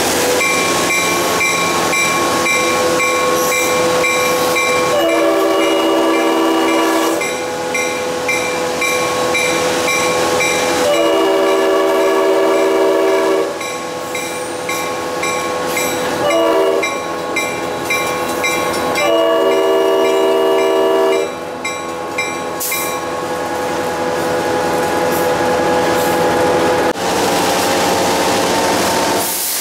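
Diesel locomotive horn blowing the grade-crossing signal, heard from on board: two long blasts, a short one, then a long one. A bell rings steadily under it until the last blast is over, with the rumble of the moving train throughout.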